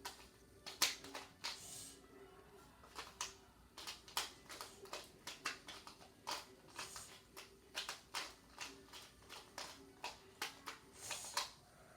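Plastic 2x2 Rubik's cube being turned quickly by hand, its layers snapping into place in a long irregular run of sharp clicks, about two a second.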